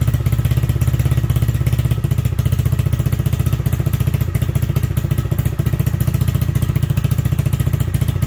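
Honda Grom's 125 cc single-cylinder four-stroke engine idling steadily just after a cold start. It is settling into idle on its own while the ECU relearns after a throttle position sensor reset.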